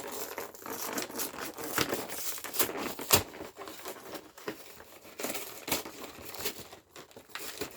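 Packaging crinkling and rustling as it is handled and opened, with a few sharp clicks and taps among the rustle.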